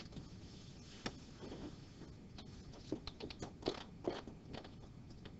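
Faint scattered clicks and light taps of a stylus on a graphics tablet, a few sharp ticks spread through the quiet.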